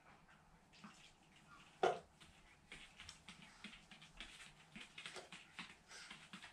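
Light, irregular ticks and taps of a small dog's claws as it moves about on the floor, coming about three to four a second in the second half. One louder short sound comes about two seconds in.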